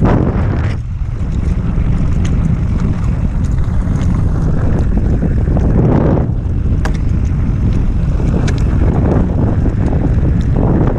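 Wind buffeting the action camera's microphone as an enduro mountain bike rolls fast down a dirt track, with tyre noise on loose dirt and stones and scattered sharp ticks and rattles from the bike. The rush swells at the start and again about six seconds in.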